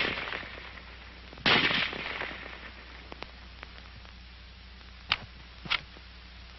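Shots from an M1 Garand semi-automatic rifle in .30-06: the tail of one shot at the very start, then a second sharp shot about a second and a half in that echoes away over the next second. A few faint sharp clicks follow later.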